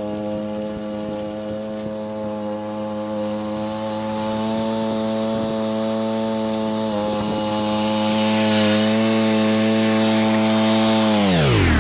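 Engine of a John Deere stand-on mower running steadily at high throttle while pulling a brick-weighted tow-behind aerator, growing louder as it approaches. About a second before the end the throttle is pulled back and the engine's pitch falls quickly toward idle.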